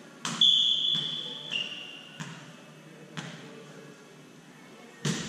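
A volleyball is struck, then a referee's whistle is blown in one long steady blast of about a second and a half, dropping in pitch as it fades. After it the ball knocks on the hardwood floor a few times, with a sharper knock near the end, each one echoing in the large gym.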